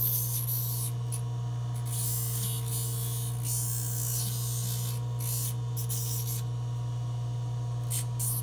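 Dental lab polishing lathe running with a steady hum. The wire and solder edges of a rapid palatal expander appliance are pressed against its pumice-impregnated rubber wheel in short strokes, giving repeated bursts of high grinding hiss as the sharp edges are smoothed.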